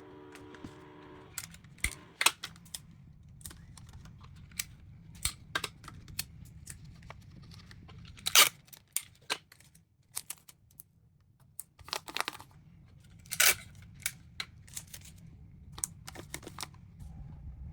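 Irregular sharp clicks, snaps and taps of tools and parts being handled during battery repair work, over a steady low hum. A steady tone sounds for about the first second.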